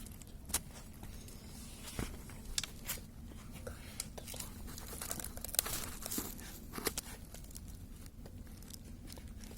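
Crinkling and tearing noises with scattered sharp clicks, over a low steady hum.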